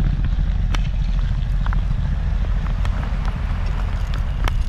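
Wind buffeting the microphone: a steady low rumble, with a few faint clicks.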